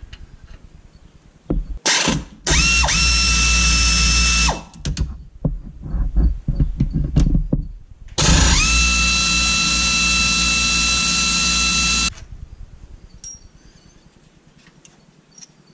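Power ratchet spinning out the 13 mm brake caliper bolts on a 1994 Ford F-150: two long runs of steady motor whine, each rising quickly to speed, the first about two seconds and the second about four seconds long, with short bursts from the tool between them.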